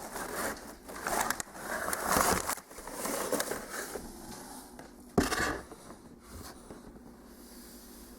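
Packaging being handled and unpacked: crinkling and scraping in uneven bursts, with one sharp louder crackle about five seconds in, then quieter handling.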